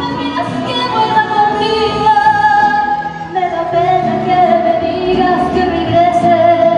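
A woman singing a slow ballad into a microphone with musical accompaniment, holding long notes and dropping to a lower held note about halfway through.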